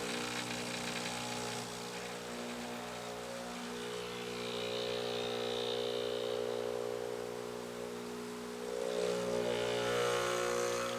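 Espresso machine pump humming steadily as it pushes water through the coffee puck while pulling a shot, its tone swelling slightly partway through and again near the end.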